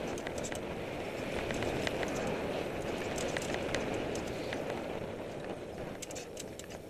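Mountain bike riding down a dirt trail: the tyres rush over the ground while the bike rattles and clicks over bumps. It is louder through the middle and eases near the end.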